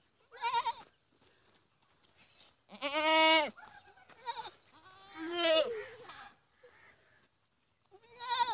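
Goats bleating: four separate calls. A short one comes at the start, the longest and loudest about three seconds in, a wavering call that falls in pitch about five seconds in, and a short one near the end.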